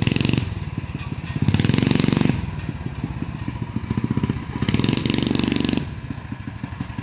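Heathkit Hilltopper mini bike's small single-cylinder engine running as it is ridden, throttled up in three bursts and dropping back between them, then easing off to a lower run near the end.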